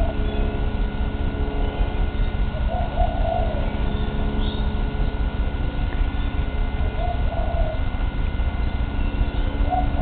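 A kitten's short coo-like calls, the noise she makes when she hears or sees a bird, four times a few seconds apart, over a steady low hum.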